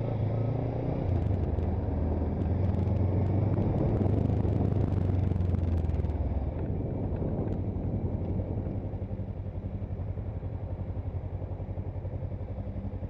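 Sport motorcycle engine heard from the rider's helmet camera, pulling at low revs with wind noise, then dropping about six seconds in to a quieter, even low-rev putter as the bike rolls slowly.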